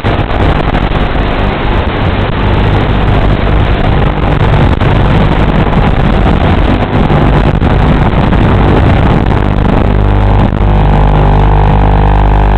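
FPV quadcopter motors and propellers buzzing loudly in flight, rising and falling with throttle, then settling into a steadier hum about ten seconds in.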